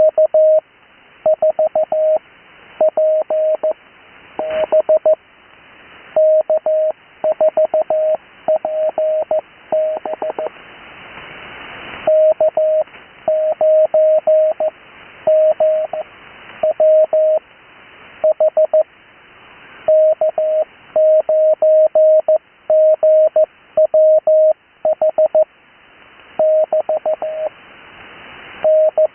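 Morse code (CW) sending of amateur radio call signs: a single steady mid-pitched tone keyed in quick dots and dashes, in short groups with brief pauses between them. Radio hiss fills the background and swells in each pause between call signs.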